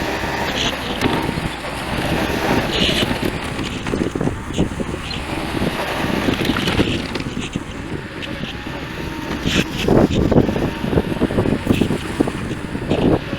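A machine engine running steadily, with repeated knocks and scrapes that are loudest about ten seconds in.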